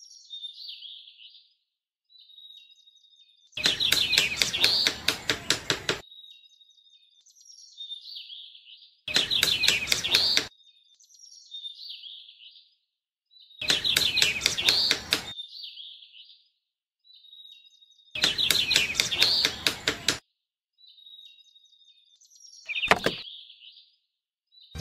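Birds chirping in short repeated calls, with several loud runs of quick light taps, each about two seconds long, and one sharp knock near the end: red plastic straws being tapped into sand with a small wooden mallet.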